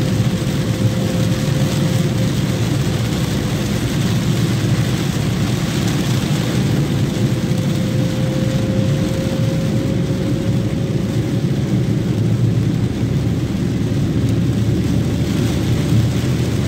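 Steady road noise inside a car driving on a rain-soaked road: engine and tyres on wet asphalt with rain on the body, plus a faint steady whine.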